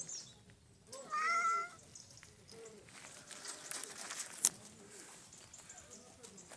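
A domestic cat meowing once, a short call about a second in, followed by light rustling and small clicks with one sharp click near the end.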